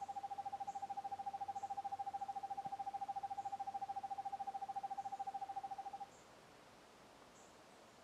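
Eastern screech owl giving its soft monotonic trill: a rapid, even-pitched trill held on one note, which stops about six seconds in.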